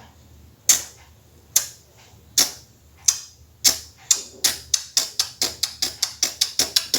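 Beatboxer's reverse small hi-hat: a sharp, hissy 'ch' click made with the tongue tip, repeated. The clicks come slowly, about one a second, then speed up to about four or five a second after four seconds in.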